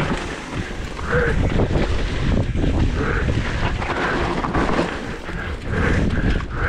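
Wind rushing over the camera microphone, with the rattle and knocks of a mountain bike descending a rough trail at speed.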